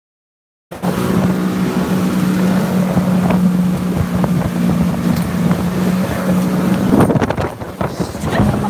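No sound for the first moment, then a small boat's engine running under way with a steady drone, and wind buffeting the microphone.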